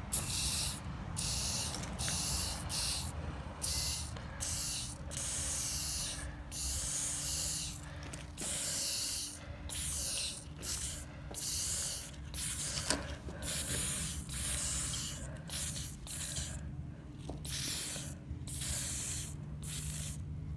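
Aerosol spray-paint can hissing in short bursts, one after another, each a fraction of a second to over a second long, as letters are sprayed onto a concrete wall.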